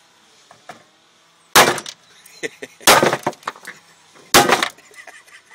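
Three hard hammer blows, about a second and a half apart, smashing the large electrolytic capacitors on an inverter's circuit board. Each is a sharp crack with a brief ringing of the metal case.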